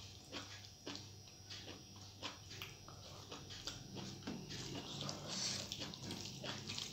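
Eating sounds made by hand: wet mouth clicks and chewing, with fingers squishing and mixing rice on a metal plate, a string of short irregular clicks. A few soft breathy puffs come near the middle and near the end, over a steady low hum.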